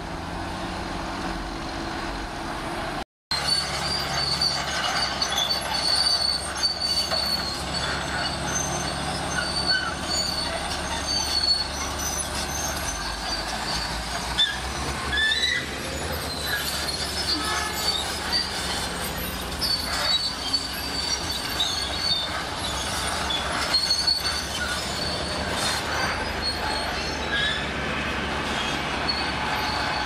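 Shantui SD22 crawler bulldozer working: its steel tracks squeal and clank over a diesel engine running under load as the blade pushes into a pile of soil and rock. The sound cuts out completely for a moment about three seconds in.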